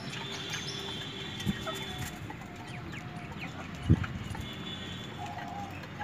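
Desi golden Misri hens clucking in short, scattered calls, with one sudden dull thump about four seconds in.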